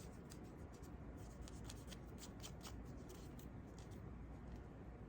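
Faint, irregular small clicks and rustling from hands pulling ripped stitches out of a fabric collar, over a steady low hum.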